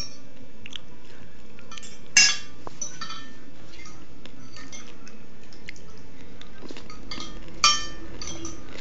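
Cutlery and dishes clinking at a meal table: scattered small taps, with two louder ringing clinks, one about two seconds in and one near the end.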